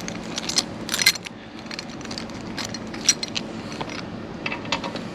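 Small metal keys jingling and clicking in bursts as a key is fitted into a saddlebag bracket's lock.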